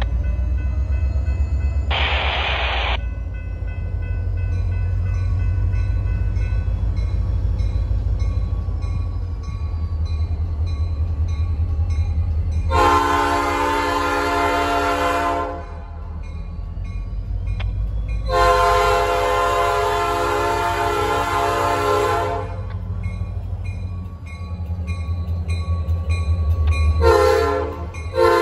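Norfolk Southern diesel locomotive approaching with a low engine rumble, sounding its multi-chime horn in the grade-crossing pattern: two long blasts, a short one, and the start of a final long one near the end. A short burst of noise comes about two seconds in.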